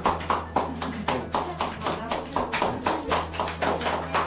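A group of people clapping together in a steady rhythm, about four claps a second, over a low steady hum.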